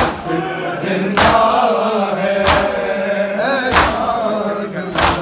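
Men's voices chanting a nauha, a Muharram lament, with a crowd beating their chests (matam) in unison. The chest-beating lands as one sharp slap about every 1.3 seconds, under the chanting.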